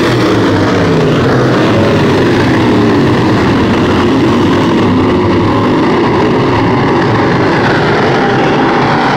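A pack of dirt-track race cars running together around the oval, their engines blending into one loud, continuous drone whose pitches waver as the cars pass.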